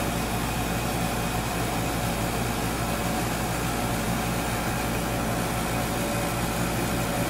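Steady background hum and hiss of room noise, a constant machine drone holding a few low tones with no change.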